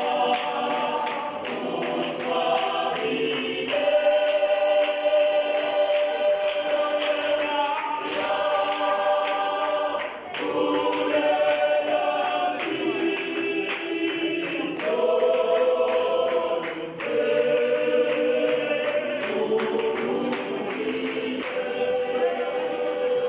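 Church choir singing a gospel song in multi-part harmony, unaccompanied, in long held phrases with short breaks between them, with hand-clapping throughout.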